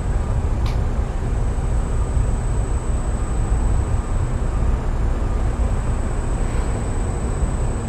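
Steady low rumble with a thin, high steady whine above it, and a brief click less than a second in.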